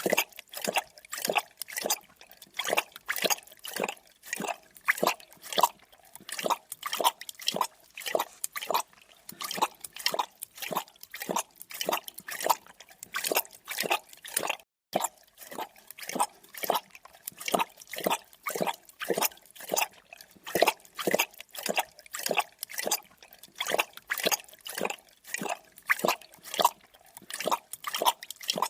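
Creature drinking sound effect: a steady run of short, wet lapping strokes, about two or three a second, with a brief break about halfway through.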